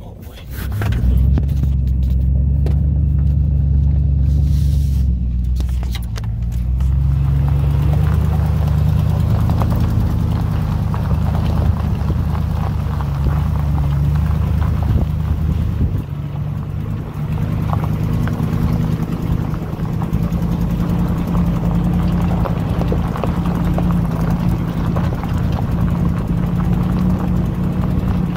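Chevrolet Silverado pickup's engine running at a low steady drone as the truck crawls along a gravel forest trail, with tyres crunching over stones. Heard from beside the front wheel.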